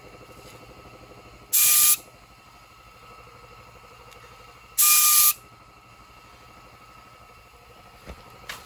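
Gravity-feed paint spray gun test-sprayed in two short hissing bursts about three seconds apart, each about half a second long with a whistling tone in it. A couple of light knocks near the end.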